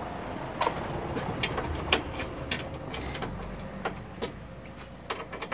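Scattered light clicks and taps of a screwdriver on the screws and metal mounting bracket of a van's awning, over a low steady background hum.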